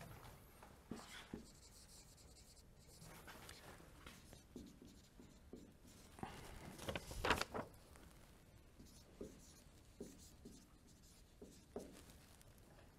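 Marker writing on a whiteboard: faint, scattered strokes, louder for a moment about seven seconds in.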